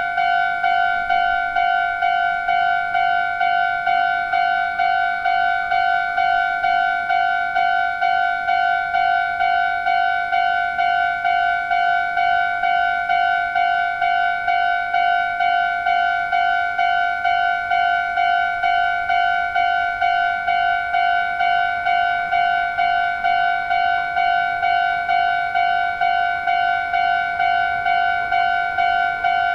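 Japanese railroad level-crossing warning alarm ringing its steady "kan-kan" tone at about two strikes a second, evenly and without let-up.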